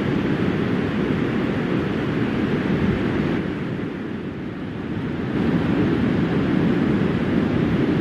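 Wind rushing and buffeting the microphone, a steady low rumble with a thinner hiss above it. It drops back for a couple of seconds in the middle, then returns at full strength.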